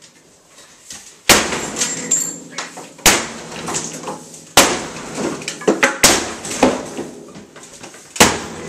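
Sledgehammer blows smashing a television's thick glass: five heavy strikes about a second and a half apart, each followed by crackling glass and falling shards.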